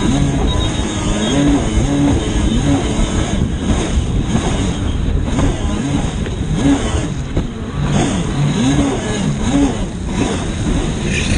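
Yamaha WaveBlaster personal watercraft's two-stroke engine racing, its pitch rising and falling again and again as the throttle is worked through the chop, over a constant rush of water spray and wind.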